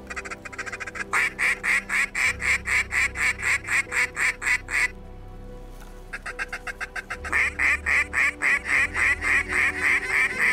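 A long, rapid, evenly paced run of duck quacks, about four a second at one steady pitch. It breaks off about five seconds in and starts again a second later, louder, over faint background music.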